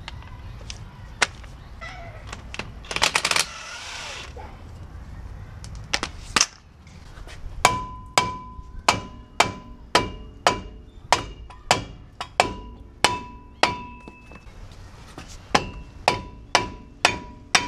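Hammer blows on a stuck front brake rotor of a 2007 Ford F-150, knocking it loose from the hub. The blows come about two a second, each leaving the rotor ringing: a run of about a dozen, a short pause, then four more.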